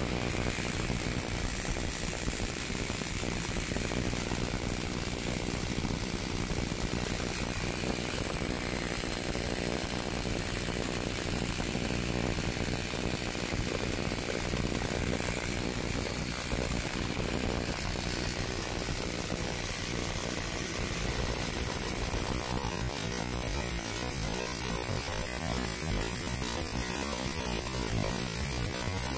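Tesla coil running continuously, its spark discharge making a steady, unbroken noise as streamers break out through a mason jar set over the breakout point and fan off an aluminium can on top.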